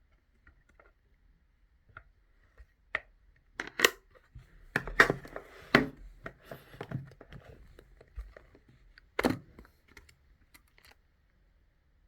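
Irregular knocks, clicks and rustles of objects being handled, busiest in the middle with a last sharp knock near the end.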